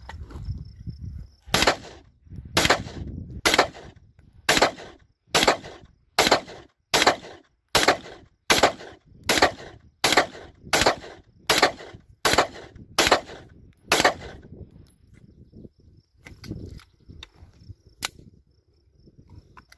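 Tanfoglio TA90 9x19mm pistol (a CZ-75 clone) firing sixteen shots at a steady pace of about one a second, emptying its 16-round magazine. A few quieter clicks of the pistol being handled follow.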